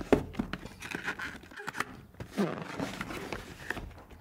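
Cardboard box being handled and its hinged lid opened: a few sharp knocks and clicks with papery scraping and rustling.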